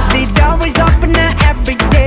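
Background music: an upbeat pop song with a steady, punchy beat and strong bass.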